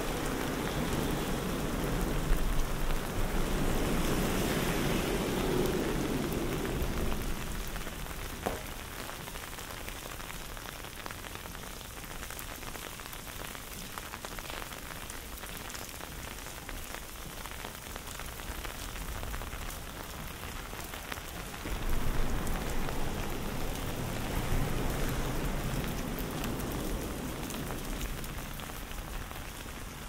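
Steady rain falling. A low rumble swells under it for the first several seconds and comes back about two-thirds of the way through.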